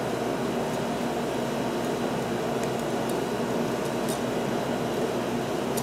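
Steady whir of a mechanical fan running, with a few faint light ticks.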